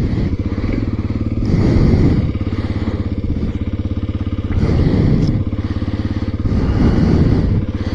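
Kawasaki KLX300 single-cylinder four-stroke engine running under way, heard through a helmet-mounted mic. The revs rise and fall three times as the bike accelerates.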